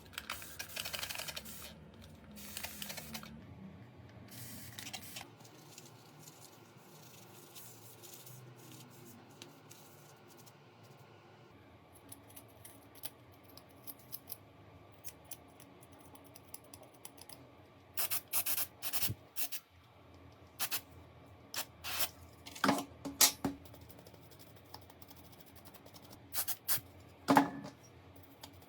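Scattered light clicks and taps of a cracked smartphone and small hand tools being handled, with quiet stretches between. A cluster of sharper taps comes about two-thirds of the way in, and one more near the end.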